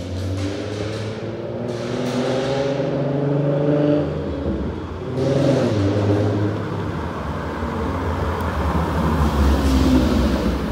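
Ford Mustang 3.7-litre V6 with a full custom exhaust from the headers to the cat-back, accelerating hard. The engine note climbs in pitch, falls back about four seconds in as the manual gearbox shifts up, then climbs again. It grows loudest near the end as the car passes close by.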